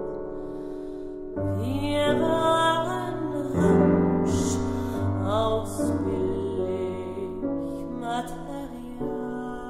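Soprano voice and piano: the voice slides up and down in pitch over sustained piano chords, and the music eases off near the end.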